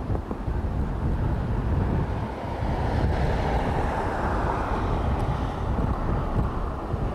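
Heavy wind buffeting the microphone, with the whine and rush of a jet airliner's engines swelling in the middle and dropping in pitch toward the end as the aircraft passes.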